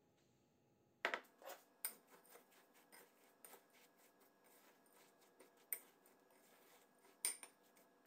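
Metal spoon stirring and scraping crushed speculoos biscuits moistened with melted butter in a glass bowl, with clinks of the spoon against the glass. It starts about a second in, with the sharpest clinks at the start and near the end.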